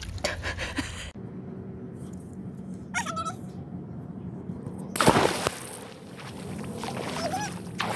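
A swimmer breaks the surface of a pool with a loud splash about five seconds in. A few short, high, gliding cries come around it.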